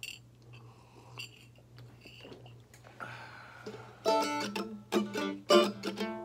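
A few small clicks and handling noises over a faint low hum. About four seconds in, a 1922 Gibson snakehead mandolin starts up, picked single notes and double-stops ringing out.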